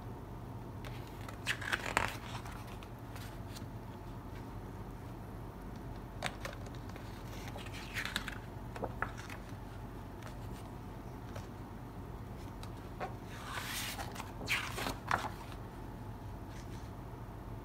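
Pages of a large hardcover artbook being turned by hand: short papery rustles and slides, about three times, the loudest group near the end, over a steady low hum.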